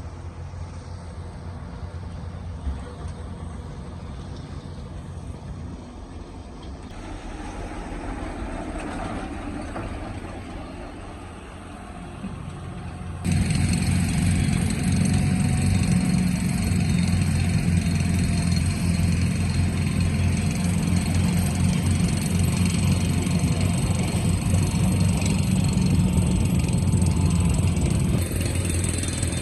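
Excavator diesel engine running steadily at low revs, then suddenly much louder about 13 seconds in and holding there, easing off slightly near the end.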